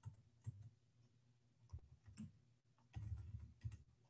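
Faint, scattered clicks of a computer keyboard and mouse, with a quick cluster of keystrokes about three seconds in.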